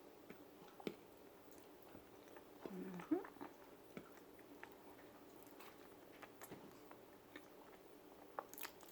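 A person chewing food close to the microphone: soft, scattered mouth clicks and smacks, with a brief closed-mouth hum about three seconds in.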